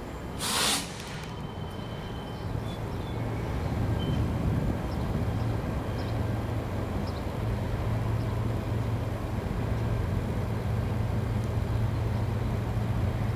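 A short, loud hiss of air about half a second in, then the steady low drone of a distant diesel locomotive engine, building over the next few seconds and holding.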